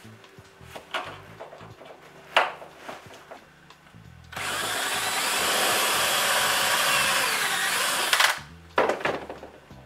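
Cordless drill running under load for about four seconds, its motor pitch sagging near the end as it bites into the work. A few short sharp knocks come before it.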